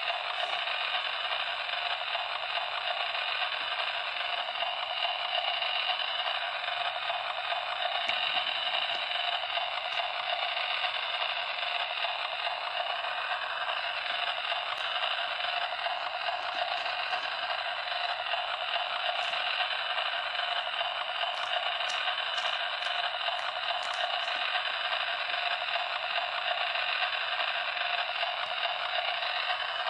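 A steady static-like hiss, with a quick run of faint light clicks about two-thirds of the way in.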